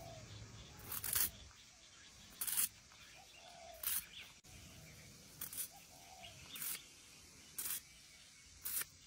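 A knife blade cutting into a clutch of apple snail eggs, the eggs crackling and crunching as they burst: about seven short, crisp crunches, roughly one every second or so.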